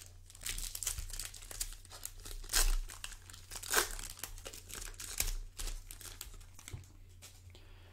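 Foil wrapper of a Panini Prizm basketball card pack crinkling as it is handled and torn open, in a run of irregular crackles with a few louder crinkles in the middle.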